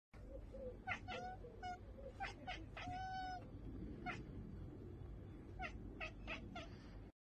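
Domestic cat chattering: a run of short, chirping calls, one longer chirp about three seconds in, then another quick run near the end. It is the excited sound a cat makes at a bird or insect it cannot reach.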